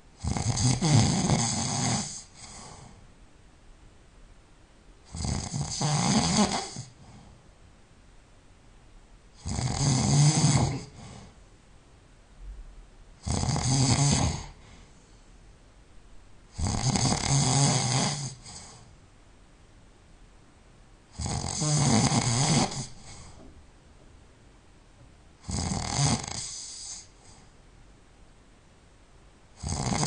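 A person snoring loud and regularly in sleep: seven snores of a second or two each, about one every four seconds, with quiet breathing between them and another snore starting at the end.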